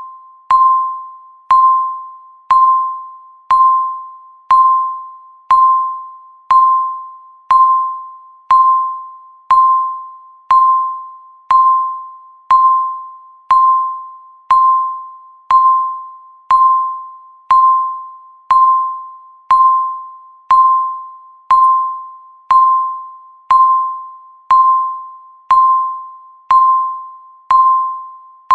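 Electronic countdown-timer beep sounding once a second, steadily: a single high tone that starts sharply and fades away before the next one, about 29 beeps in all.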